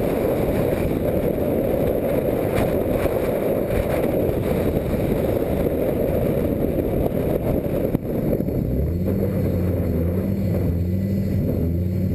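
Onboard sound of a turbocharged, rear-wheel-drive Audi S4 drift car at speed on track: a loud, steady mix of engine noise and wind on the camera microphone. About eight seconds in, the engine settles into a lower, steady note.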